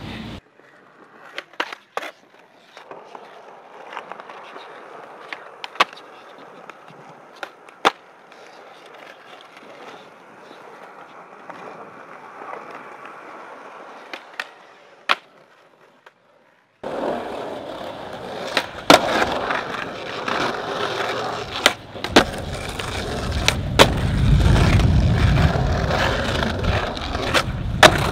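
Skateboard wheels rolling on smooth concrete with a steady gritty hiss, broken by sharp wooden clacks of the board popping and landing. About 17 seconds in, after a brief drop-out, the rolling comes back louder and rougher, with a deep rumble under it and several more clacks.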